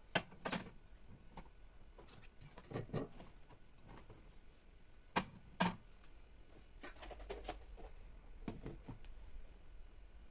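Containers and kitchen items being handled and set down: scattered knocks and clicks, with two sharp knocks a little past halfway through.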